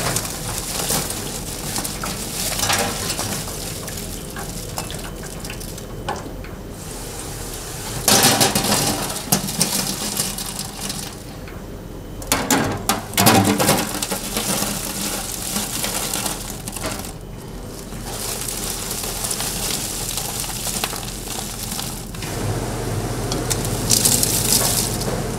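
Chicken frying in hot oil with a steady sizzle, along with metal utensils scraping and clanking against pans as the pieces are stirred and tossed, louder and busier in two stretches. The sound changes abruptly several times.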